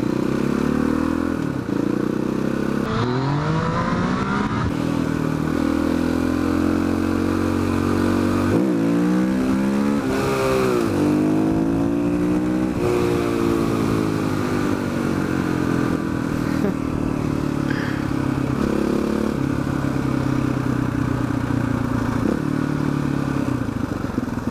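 KTM 400 SXC single-cylinder four-stroke engine under way, its pitch climbing and dropping back several times as it accelerates and shifts.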